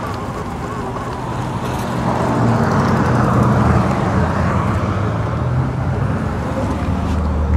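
Road traffic and wind rushing over the microphone while riding an electric dirt bike beside a busy road, getting louder about two seconds in.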